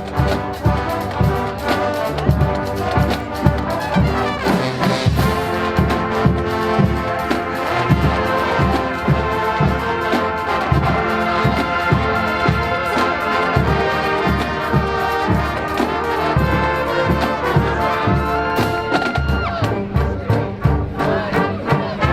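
College marching band playing a brass tune, trumpets and trombones over a steady drum beat.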